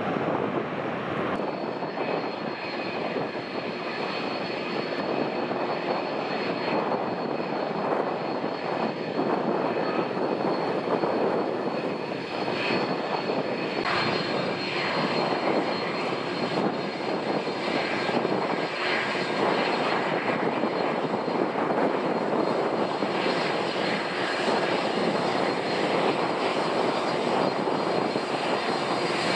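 Airliner's engines running, a steady roar with a thin high whine in it.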